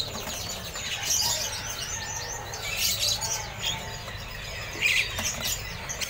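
Many caged small songbirds chirping and twittering together: a busy mix of short, high calls and trills from several birds at once.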